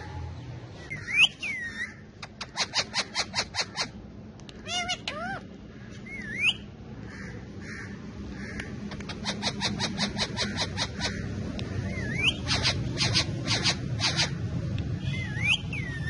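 Indian ringneck parakeets calling: quick runs of sharp repeated screeches, several a second, broken up by short whistled glides that bend up and down.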